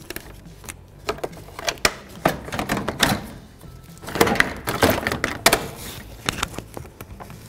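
Plastic radiator fan shroud being worked up out of a tight engine bay, clicking, knocking and scraping against the parts around it. The scraping is heaviest about three seconds in and again from about four to five and a half seconds in.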